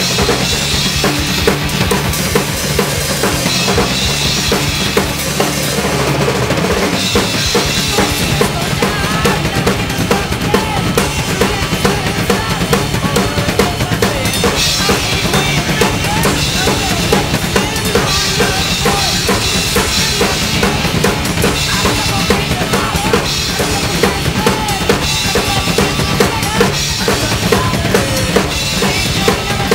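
Drum kit played fast along with a thrash metal recording: kick drum, snare and cymbals over the song's distorted guitars. About seven seconds in the kick drum goes into rapid, continuous double-bass strokes.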